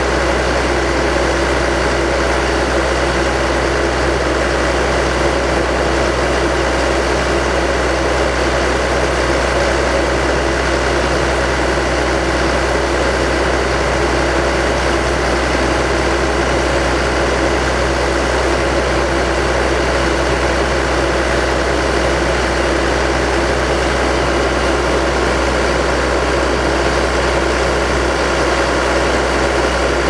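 Engine of an Al-Jon Model 400 logger/baler idling, a steady low hum that does not change.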